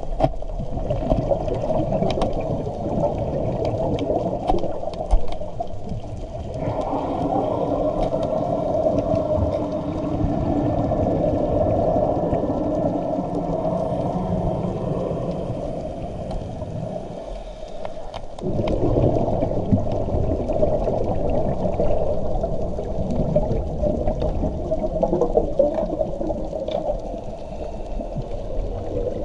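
Underwater recording of air bubbles rushing and gurgling from scuba gear and an air-filled lift bag, heard through an underwater camera housing. It runs on as a continuous rush, with a short lull about two-thirds of the way through.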